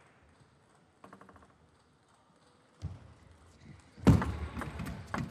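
Table tennis ball sounds: a quick run of light, evenly spaced bounces about a second in, then from about four seconds in a string of loud, sharp knocks of ball on bat and table.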